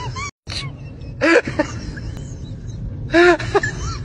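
A cat meowing: short meows that rise and fall in pitch, once about a second in and again about three seconds in, over a low steady background noise. The sound drops out briefly just after the start.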